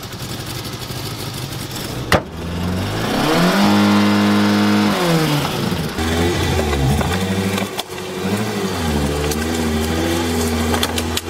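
Suzuki Swift's small petrol engine idling steadily for about two seconds, then revving hard: the pitch climbs, holds high for a couple of seconds, drops, and goes on rising and falling as the car is driven through snow. A sharp click sounds at the change, about two seconds in.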